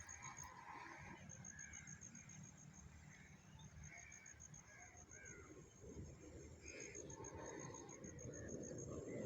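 Faint birdsong: scattered short chirps and calls over a steady high-pitched pulsing trill and a low rumble. A rushing noise grows toward the end.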